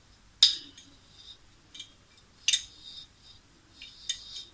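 Metal parts of a microphone boom arm clinking and scraping as a threaded piece is screwed on by hand: three sharp clinks, the first the loudest, with light ticking and scraping between them.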